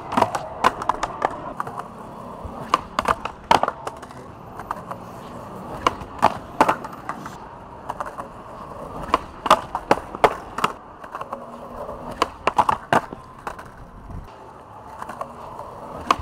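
Skateboard wheels rolling on concrete, with many sharp wooden clacks of the board being popped, landing, and striking the concrete ledge over several attempts at a trick.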